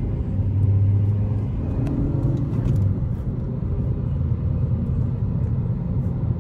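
Ford Focus interior noise while driving: a steady low engine and road rumble, a little stronger in the first three seconds.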